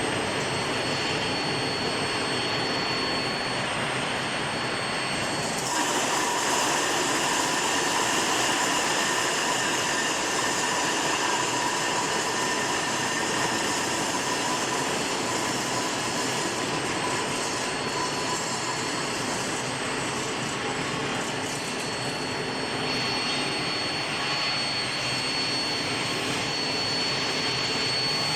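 Steel bar induction hardening and tempering line running: a steady hissing rush of machinery with a thin, steady high whine. The noise grows brighter about six seconds in.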